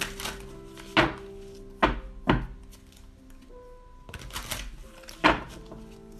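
A deck of angel oracle cards being shuffled by hand, with papery riffles near the start and again about four seconds in, and four sharp knocks as the deck is tapped against the table in between. Soft background music with long held notes runs underneath.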